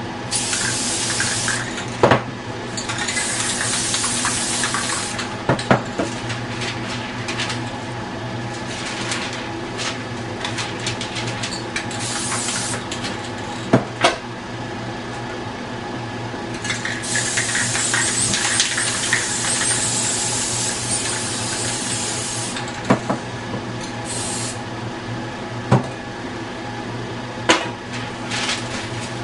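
Aerosol spray-paint cans hissing in repeated bursts, some brief and one about five seconds long, with sharp clicks and knocks of cans and tools in between. A steady hum runs underneath.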